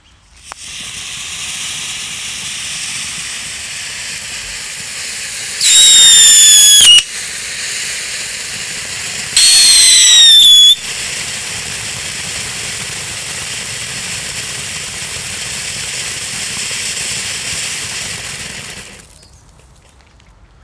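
Feistel Superfontäne ground fountain firework spraying sparks with a steady hiss that cuts out near the end. Twice, about six and ten seconds in, it gives a very loud whistle lasting just over a second, each falling slightly in pitch.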